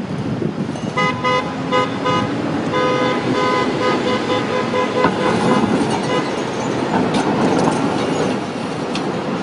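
A tram's warning horn sounds in a few short toots about a second in, then in longer toots, over the rumble of the tram approaching and passing on its rails.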